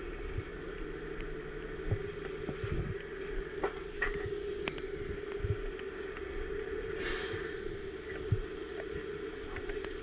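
Heavy rotator wrecker running at a steady pitch, a steady hum under the boom work, with scattered light clicks and knocks and a short hiss about seven seconds in.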